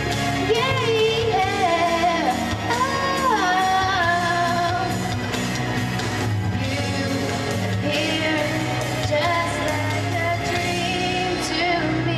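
A woman singing a pop ballad over instrumental accompaniment, with long held notes that bend and waver in pitch.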